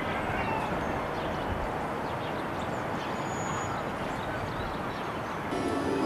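Steady outdoor city background noise with a few faint, high bird calls. Near the end, music with held notes comes in.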